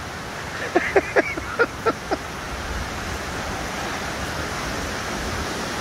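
Steady rushing of a river running below the trail, with a quick run of short vocal bursts about a second in.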